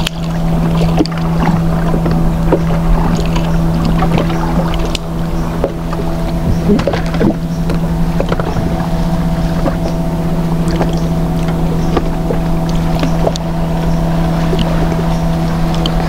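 Boat's outboard motor running at a steady, unchanging pitch, with scattered light clicks and knocks over it.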